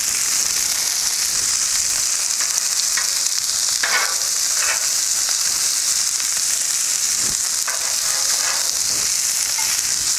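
Smashed ground-beef burger patties and bacon sizzling on a hot Blackstone flat-top griddle: a steady, even frying hiss.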